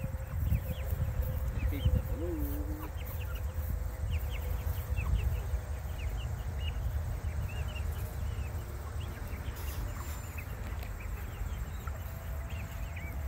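A flock of young chickens feeding, with many short, high peeps and chirps scattered throughout and a few longer, lower calls, over a steady low rumble.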